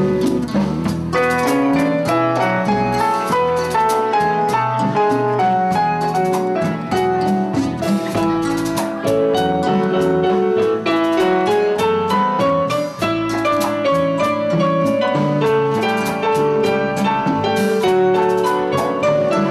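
Kurzweil SP76 digital stage piano played live in a piano voice: a busy instrumental passage of quick runs and chords, with low bass notes underneath.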